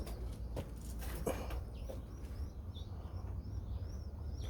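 Small birds chirping in short, repeated high chirps, over a low steady rumble.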